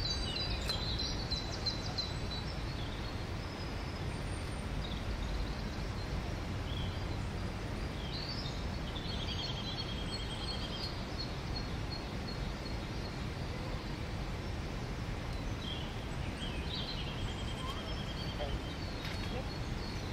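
Outdoor park ambience: a steady low rumble of distant city noise, with small birds chirping. Twice a bird gives a short trill of quick repeated notes, once near the middle and again later.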